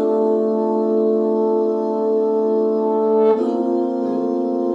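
Background music of held, sustained chords, the chord changing about three seconds in.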